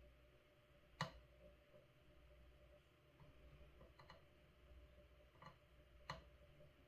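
Near-silent room tone with a few faint, sharp clicks, the clearest about a second in and another near the end, from small hand work at a soldering bench.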